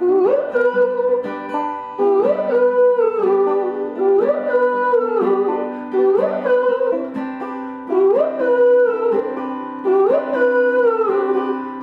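Acoustic folk band playing a song's instrumental intro on plucked strings, acoustic guitar and banjo. The phrase repeats about every two seconds, with a sliding melody line over a held low note.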